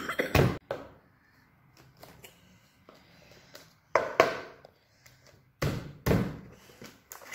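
Hollow plastic knocks and thunks from a large plastic surprise egg being handled and its halves set down on a tabletop. There are a few sharp knocks: one at the start, another about four seconds in, and two more close together a second and a half later.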